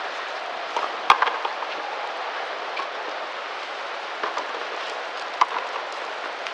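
Frontenis rally: the rubber ball struck by stringed rackets and hitting the fronton wall, with one sharp crack about a second in and fainter knocks later, over steady background noise.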